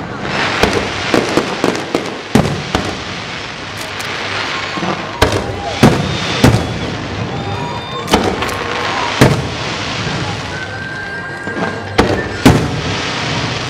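Fireworks display: aerial shells bursting one after another in about a dozen sharp bangs at uneven intervals, over a steady crackling haze. The loudest bangs come about halfway through and near the end.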